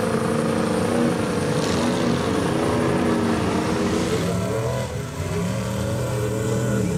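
Ford diesel engine of a mega mud truck running under load as it drives through mud, its note wavering up and down with the throttle and dipping briefly about five seconds in.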